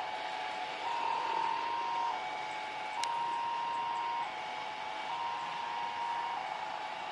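A two-tone warning signal alternating between a higher and a lower note about once a second, over a steady hissing noise, with a sharp click about three seconds in.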